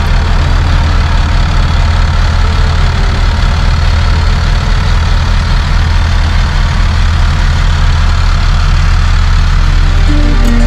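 Volvo Penta TAMD61 six-cylinder marine diesel idling, heard up close in the boat's engine room: a loud, steady drone with a strong low hum.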